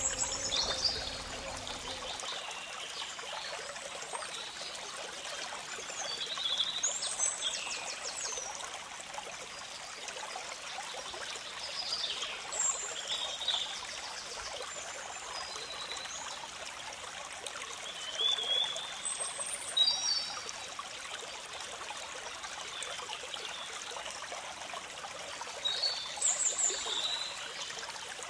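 Steady flowing water, like a stream, with short high bird chirps and whistles breaking in about every five or six seconds.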